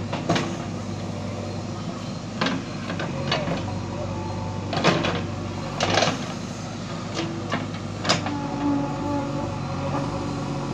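JCB 3DX backhoe loader's diesel engine running steadily while it works, with a sharp knock every second or two as the backhoe arm and bucket dig into the mud.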